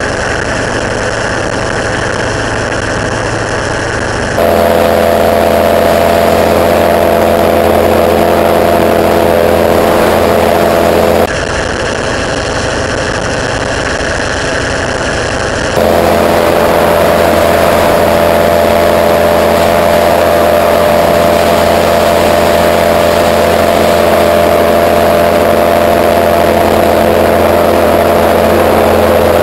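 Gyroplane engine running steadily in flight, heard close on board. The sound switches abruptly about four seconds in, again at about eleven and sixteen seconds, between a duller rush and a louder, more tonal drone as the footage alternates between two on-board cameras.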